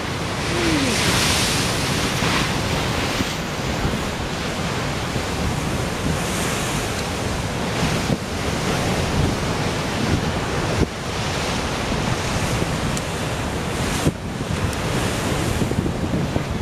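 Ocean surf crashing against dark rocks and surging through a rock channel, throwing spray, with louder crashes about a second in and again around six seconds. Wind rumbles on the microphone throughout.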